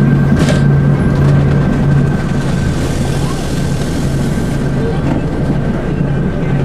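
Engine and road noise of a moving bus heard from inside the passenger cabin: a steady low drone with a thin high whine running through it.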